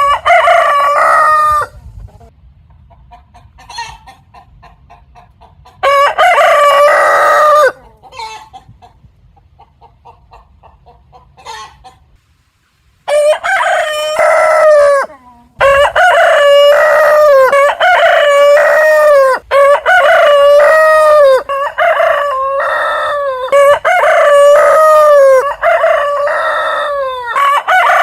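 Roosters crowing: one crow at the start and another about six seconds in, with faint short calls between them. From about halfway on, the crows follow one after another almost without a break.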